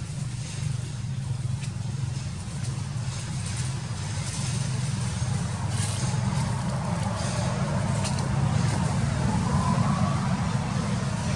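Low, steady motor rumble that grows somewhat louder through the second half, with faint light ticks over it.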